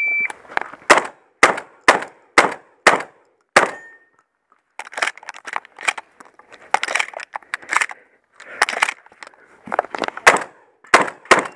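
Shot-timer start beep, then six shotgun shots about half a second apart. After that come several seconds of clatter as shells are loaded into the gun. The shooting then resumes, with quick shots close together near the end.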